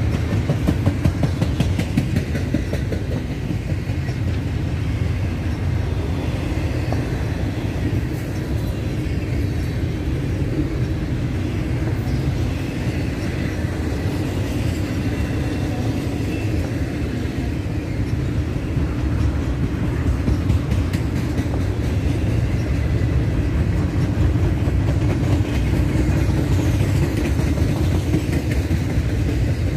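Freight train cars rolling past: a steady rumble of wheels on rail, with frequent clicks as the wheels cross rail joints.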